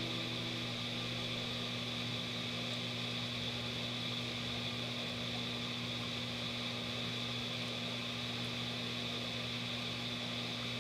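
A steady low hum over an even hiss, unchanging throughout.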